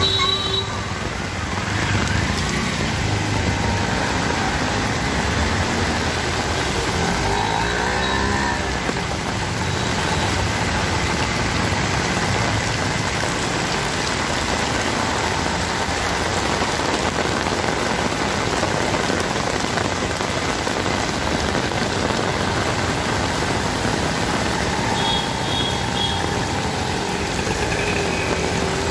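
Heavy rain pouring onto a wet street, a steady hiss, with motor traffic passing through it: auto-rickshaw and bus engines and tyres on standing water.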